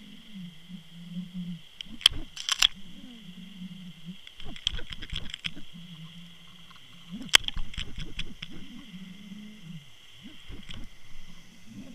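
Underwater audio from a camera at depth: a low wavering hum that comes and goes in stretches of a second or two, broken by sharp knocks and clicks, the loudest about two seconds in and again about seven seconds in.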